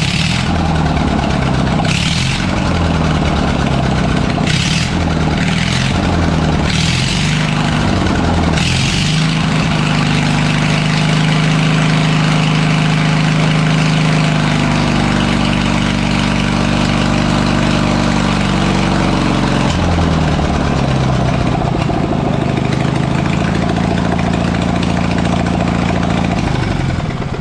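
Riding lawn mower engine running while its throttle is worked through a newly fitted foot-pedal cable. The revs change over the first nine seconds, with a few short bursts of noise. They hold higher for about ten seconds, then drop back near the twenty-second mark.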